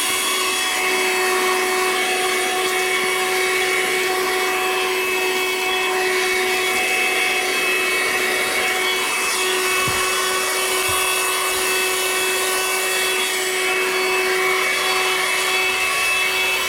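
Audew 12V handheld car vacuum running steadily: a constant high motor whine over a rush of air as it is worked over a dog's coat.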